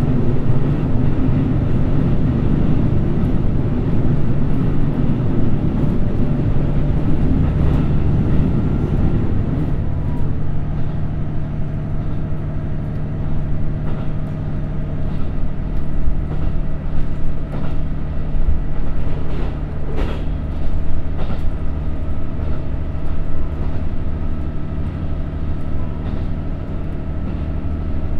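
Cabin sound of a KiHa 75 diesel railcar running at about 70–75 km/h, heard from a seat directly above its Cummins NTA855-R1 diesel engine, with wheels rumbling on the rails. The rumble is coarser for roughly the first ten seconds, then a steadier tone stands out, with a few short clicks around the middle.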